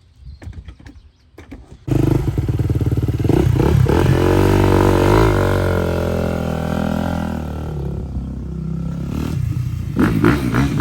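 2015 Suzuki RM-Z250 single-cylinder four-stroke motocross engine starting suddenly about two seconds in and running loudly, its revs rising and falling.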